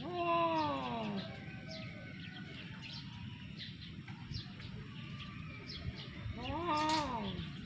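Domestic cat yowling twice, fighting calls: one long low yowl falling in pitch at the start and another rising then falling near the end. Birds chirp in short high notes between.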